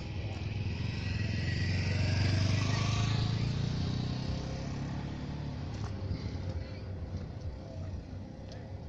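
An engine passing by, its low hum swelling to its loudest about two to three seconds in and then slowly fading.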